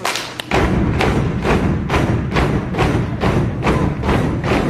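Cheer team stomping and clapping in unison, a steady beat of about two hits a second that starts about half a second in.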